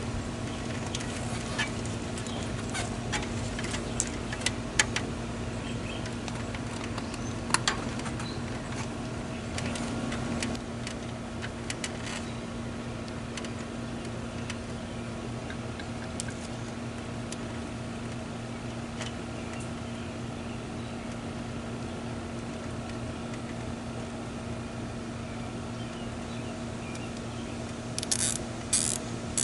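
A steady machine hum runs throughout, with scattered light clicks and taps over the first dozen seconds and a few sharper clicks near the end.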